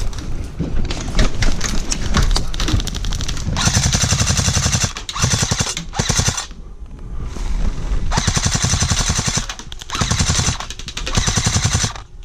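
Airsoft gun firing fully automatic, in about six rapid bursts of closely spaced shots that begin a few seconds in, with short pauses between them.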